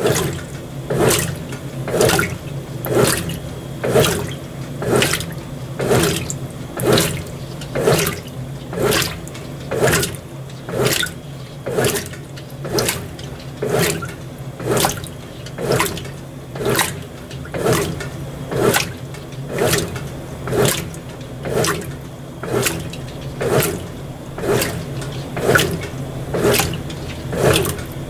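Brastemp BWT12 top-loading washing machine agitating a load of delicates: water sloshing in even strokes about once a second over a steady low hum.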